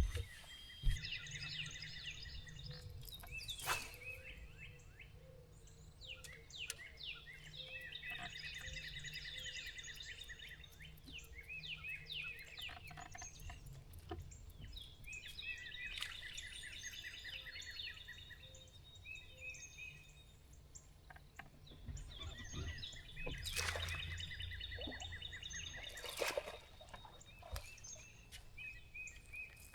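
Songbirds singing: repeated bursts of quick, trilled notes, over a low steady rumble, with a few sharp knocks.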